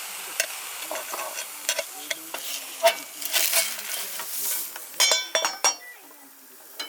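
Meat sizzling as it cooks over a campfire, with metal utensils scraping and clicking against it, and a few ringing metallic clinks about five seconds in.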